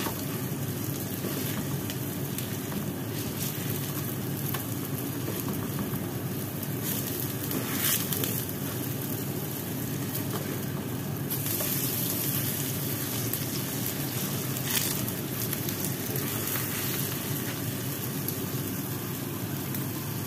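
Pumpkin, minced prawn and pork patties sizzling steadily in shallow oil in a frying pan, with a couple of brief clicks.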